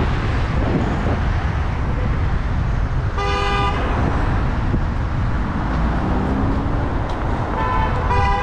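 Wind rumble on a camera riding a bicycle through city traffic. A car horn toots for about half a second around three seconds in, and a second, higher-pitched horn toot comes near the end.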